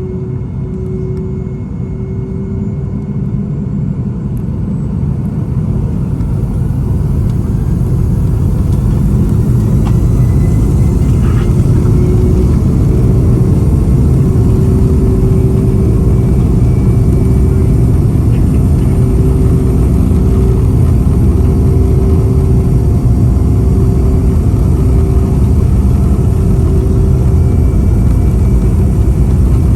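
Boeing 757-232's Pratt & Whitney PW2000-series turbofan engines at takeoff power, heard from inside the cabin. The engine sound builds over the first several seconds and then holds steady and loud, with a deep rumble underneath and a steady hum above it.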